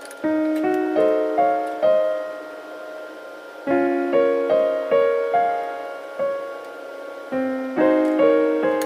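Background music: a piano-like keyboard melody of struck notes that ring and fade, played in short phrases with brief pauses between them.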